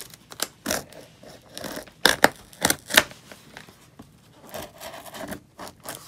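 Packing tape on a cardboard shipping box being scraped and slit along the seam: a run of short scratches and snaps, loudest about two and three seconds in.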